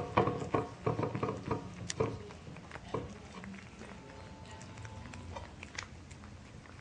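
Background music of short plucked or struck notes for about the first three seconds, then dying down to a quieter stretch with a few faint clicks.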